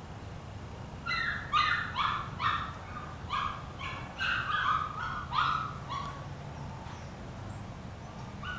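Eight-week-old Portuguese Water Dog puppies yipping and whining: about a dozen short, high calls, roughly two a second, that stop about six seconds in.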